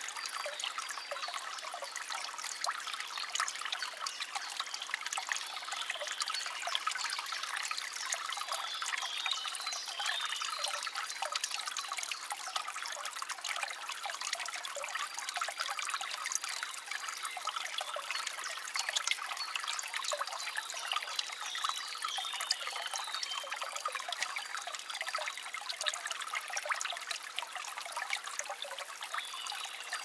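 Clear water trickling and babbling in a small spring-fed brook: a steady stream of fine splashes and drips.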